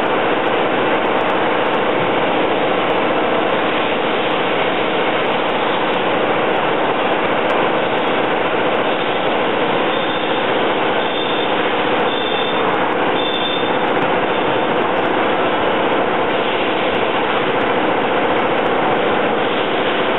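CNC machine running a cutting job with flood coolant spraying and streaming against the inside of its enclosure door: a loud, steady machine-and-spray noise, with a few short, faint high whines around the middle.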